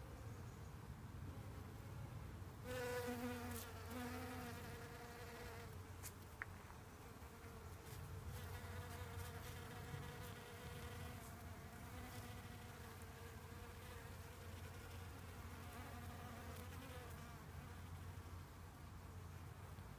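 Honeybees buzzing in flight around flowers: a faint, wavering hum that sets in about three seconds in, is loudest for a couple of seconds, then carries on more softly with its pitch rising and falling.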